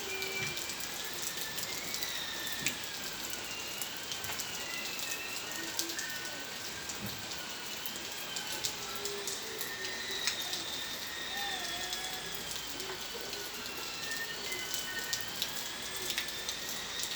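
Rain falling steadily, with many separate drop hits on a hard surface. A faint, high, wavering tone runs through it.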